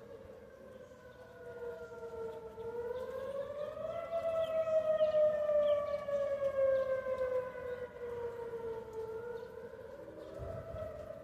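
Outdoor civil-defense warning siren wailing for a storm warning: a two-note tone that rises in pitch, slides slowly down, then rises again near the end. It swells loudest in the middle.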